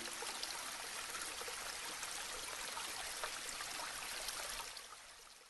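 Running water, a stream trickling with small splashes, fading out near the end.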